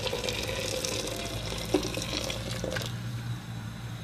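Hot water pouring in a steady stream into a stainless steel pressure-cooker pot over raw beef strips, tapering off near the end, with a light knock about halfway through.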